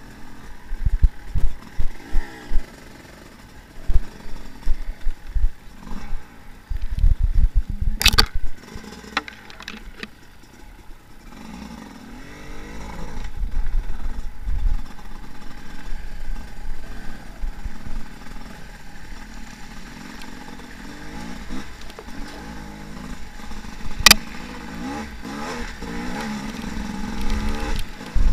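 Enduro dirt bike engine rising and falling in pitch as the throttle is worked over rough trail. Heavy low thumps from the bike jolting over the ground fill the first part, and two sharp cracks come about eight seconds in and near the end.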